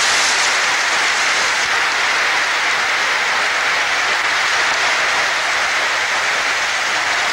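A large hall audience giving a standing ovation: loud, dense, steady applause.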